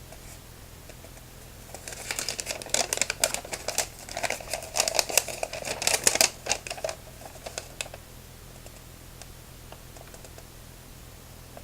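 Paper rustling and crinkling as a folded quick start guide is handled and opened out, a dense run of crackles from about two seconds in to about eight seconds in, then only a few light ticks.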